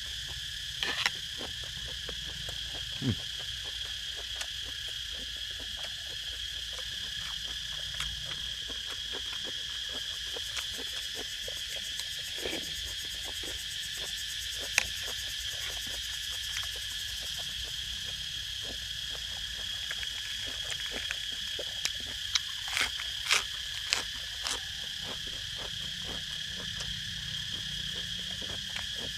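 Crickets chirring steadily in two high tones, with scattered sharp clicks and crunches of eating close to the microphone, most of them bunched together near the end.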